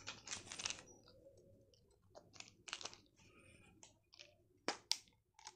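Faint crinkling and rustling of sweet packaging being handled and opened, with two sharp clicks near the end as the plastic flip-top cap of a Gems tube snaps open.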